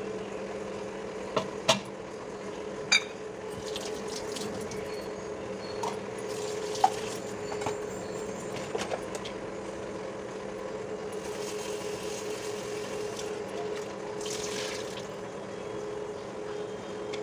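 A spatula clinking against the aluminium lid of a covered cooking pot a few times in the first three seconds, over a steady low hum. Faint hissing rises twice later on.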